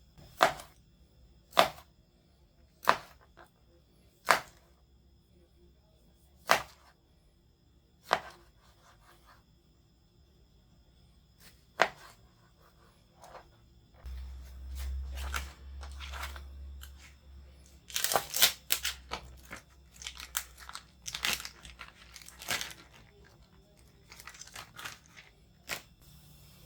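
Vegetable peeler scraping skin off a raw potato: single crisp strokes a second or two apart, then quicker, busier scraping and handling from about halfway through.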